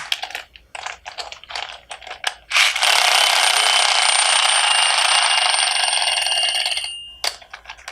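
Short clicks for the first couple of seconds, then a loud, steady ringing like an alarm bell that lasts about four seconds and fades out.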